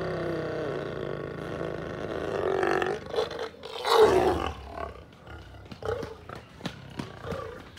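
Lions growling while mating: a long, low, wavering growl for about the first three seconds, then a short, loud snarl about four seconds in, the snarl that ends the mating as the male comes off the lioness.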